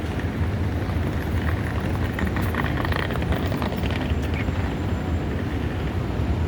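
Steady low rumble of city street traffic, with faint scattered clatter about two seconds in.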